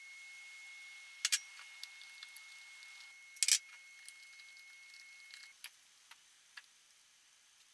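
Scattered light clicks and knocks of a silicone spatula and white ceramic bowls as whipped cream is stirred and scooped, the loudest knock about three and a half seconds in. A faint steady high tone runs underneath and stops about two-thirds of the way through.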